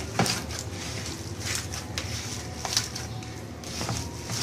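A hand kneading and mashing raw minced meat (keema) with spice paste in a plastic bowl, working the spices through it: soft squishing with scattered short clicks over a steady low hum.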